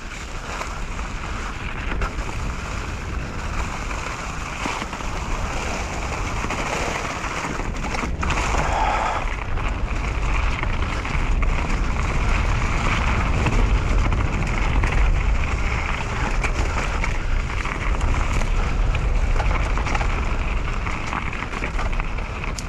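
Mountain bike rolling down a wet dirt trail, its knobby Michelin Wild Enduro tyres running over leaves and roots. Wind rushes steadily over the helmet camera's microphone, a little louder in the middle stretch.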